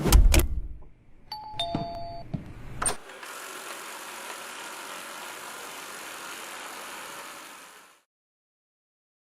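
A two-note electronic chime, the second note lower than the first, then a click and a steady rushing noise for about five seconds that fades out.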